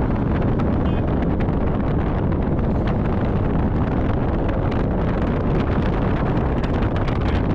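Steady wind buffeting the microphone of a camera on a moving vehicle, crackling with rumbling road and vehicle noise underneath.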